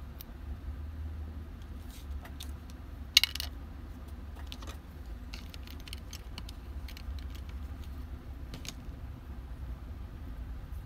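Light metallic clicks and clinks of small parts and tools being handled, with one sharp clink about three seconds in, over a steady low hum.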